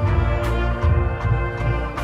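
Marching band playing: sustained brass chords over heavy low bass notes, with sharp percussion strikes.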